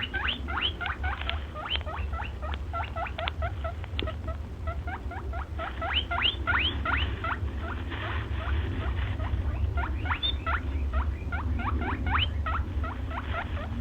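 A small rodent squeaking: a fast run of short, rising high squeaks, several a second, over a steady low hum.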